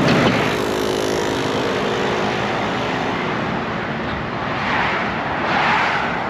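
Highway traffic passing close by: a steady rush of tire and engine noise, with vehicles sweeping past at the start and again about five seconds in.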